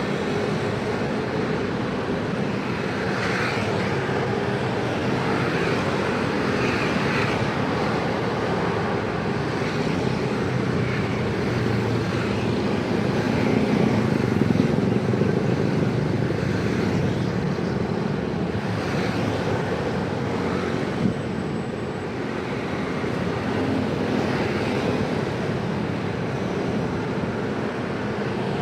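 Busy road traffic: a steady mix of vehicle engines and exhausts idling and passing, swelling a little around the middle.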